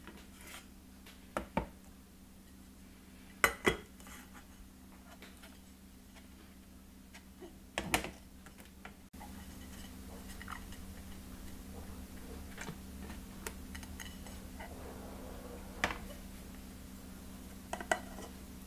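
Aluminium ring mould and ceramic plate clinking and knocking together on a worktop as the plate is set over the mould and the two are turned over to unmould a bavarois. The knocks are short and sharp, several in close pairs, with a steady low hum beneath.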